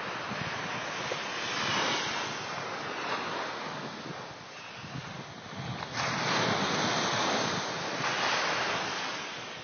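Small waves breaking and washing up a sandy beach, the surf swelling and fading in surges, loudest from about six seconds in. Wind gusts on the phone's microphone add to it.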